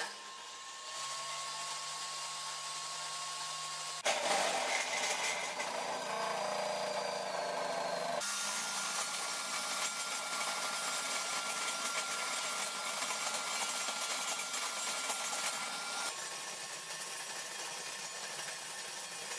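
Power-tool cutting noise as a wooden rod, spun by a drill, is shaved round inside a box-type dowel-making jig, beginning with a loud rough onset about four seconds in and settling into a steadier whine. Underneath is the steady noise of a dust-extraction vacuum.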